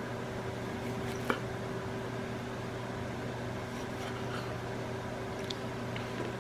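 Steady low hum of a running kitchen appliance, with a single light tap of a knife on a wooden cutting board about a second in as cherry tomatoes are sliced.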